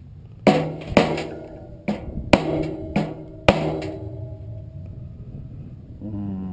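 Six hammer blows on a furnace blower motor and its metal blower wheel, each leaving a ringing metal tone, as the motor is pounded out of the wheel.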